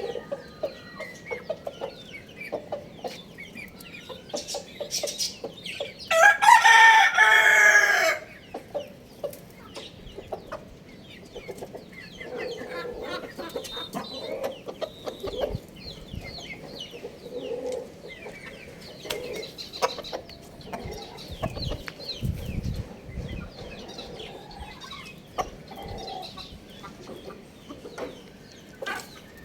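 Rooster crowing once, a loud call of about two seconds starting about six seconds in, with chickens clucking quietly and scattered clicks around it.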